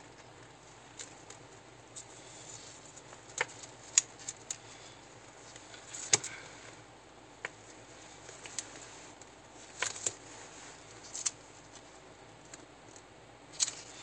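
Gloved hands handling adhesive tape around a plastic endotracheal tube: scattered small clicks, taps and crinkles at irregular times, the sharpest about four and six seconds in and again near the end.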